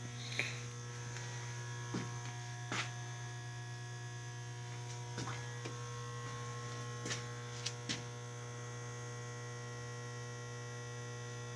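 Steady electrical mains hum, pitched around 120 Hz with a stack of fainter higher tones, unchanging throughout. A few faint clicks are scattered through it.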